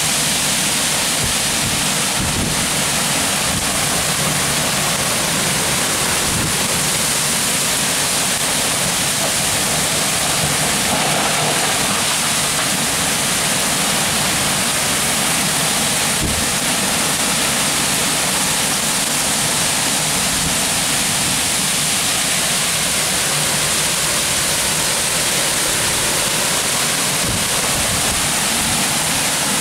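Torrential rain driven by strong downburst winds: a loud, steady rush of downpour, with wind buffeting the microphone.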